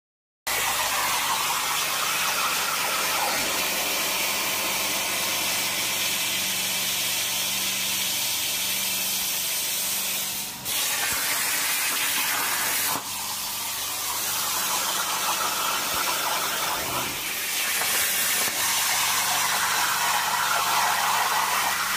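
CNC plasma torch cutting sheet steel over a water table: a steady, loud hiss of the arc and its air jet with a faint low hum under it. The hiss changes briefly around 11 and 13 seconds and again around 17 to 18 seconds.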